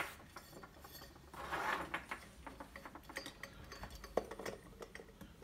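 Metal floor-lamp pipe being handled while the lamp cable is slid through it: a sharp click right at the start, a scraping rustle about a second and a half in, and scattered light metal clinks and knocks, one louder about four seconds in.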